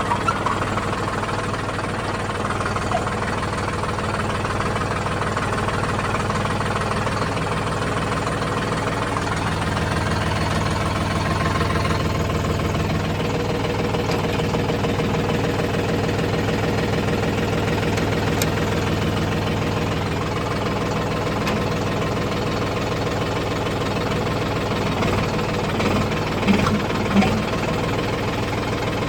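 An engine running steadily at idle, with an even, unbroken note. A few short knocks come near the end.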